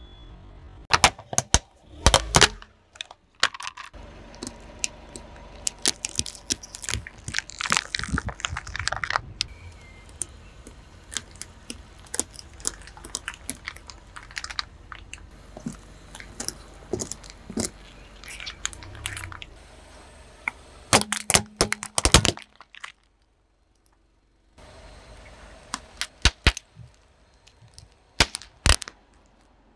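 Car tyre slowly crushing small plastic bags of coloured gel and plastic-wrapped packets of modelling clay against asphalt: a run of sharp, irregular cracks, pops and crackles of splitting plastic, in dense clusters with brief lulls between them and a short silence a little after the middle.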